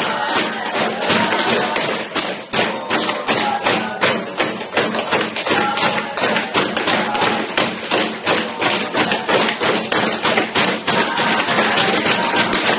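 A youth football team's war cry: a fast, steady run of rhythmic thumps, about four a second, with voices chanting over them.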